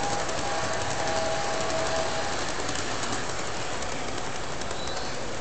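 O-scale model freight train rolling along metal track, its wheels and cars making a steady rattle with many small clicks.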